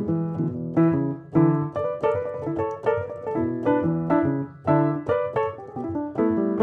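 Background piano music: a steady flow of struck notes and chords.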